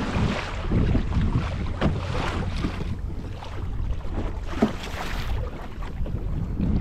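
Wind buffeting the microphone in a steady low rumble, with small waves slapping and splashing against a kayak's hull every second or so.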